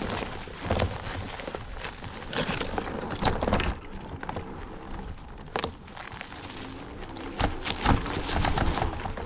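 Offroad wheelchair rolling over rough forest ground: irregular crunches, knocks and rattles over a low rumble.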